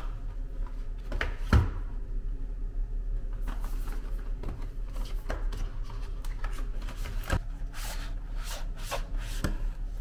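Hands handling paper and boxed toiletries on a bathroom counter: rustling, sliding and small taps, with a louder knock about one and a half seconds in and another a little after the middle. A steady low hum runs underneath.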